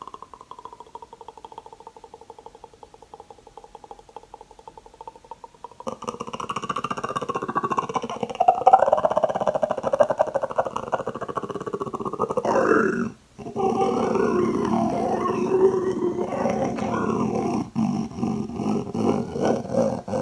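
Human mouth-made impression of the Predator creature: a quiet, rapid rattle of clicks for about six seconds, then loud growling that breaks off briefly about thirteen seconds in and resumes as pulsing growls.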